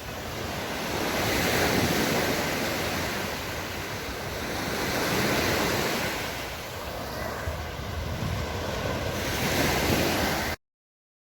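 Sea waves breaking and washing on a sandy beach, the surf swelling and easing about every four seconds, with wind buffeting the microphone. The sound cuts off abruptly near the end.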